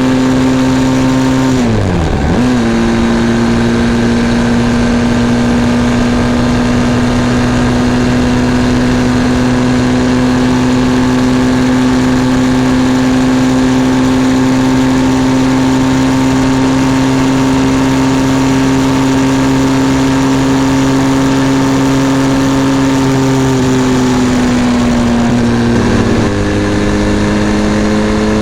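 Benelli TRK 502 X motorcycle's parallel-twin engine running under way at a steady pitch. Its revs dip sharply and come back about two seconds in, then ease off near the end and settle at a new pitch, as with throttle and gear changes.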